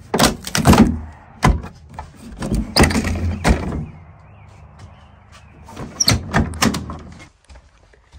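School bus roof emergency-exit hatches being unlatched and pushed open: several bursts of clunks and rattles. A low steady hum runs underneath and stops shortly before the end.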